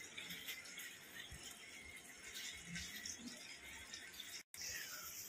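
Faint room tone: a steady hiss with a few soft, low knocks, broken by a moment of complete silence about four and a half seconds in.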